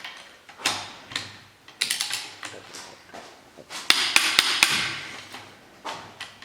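Sharp metallic clicks and clinks of a wrench and socket working the cylinder head bolts during the final angle-tightening, in three or four short clusters.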